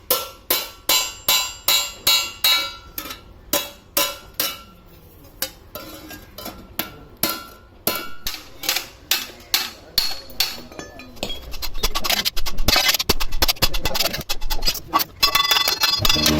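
Hammer blows on sheet metal: a quick run of ringing strikes, about three a second, then slower, irregular blows. In the last few seconds comes a dense, continuous harsh metalworking noise.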